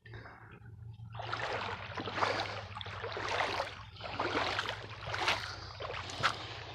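Footsteps wading through a shallow, gravelly creek: a run of sloshing, splashing steps, about one and a half a second, starting about a second in.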